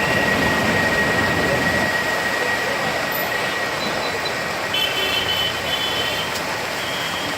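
Heavy rain and railway-station din as a loud, steady rushing noise, with a thin high whine that fades out around the middle and a few short high beeps about five seconds in.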